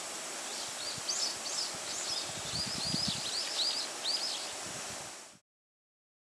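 A small bird calls a quick series of short, high, arching notes over a steady rustle of wind in the bamboo and trees. The sound cuts off abruptly about five seconds in.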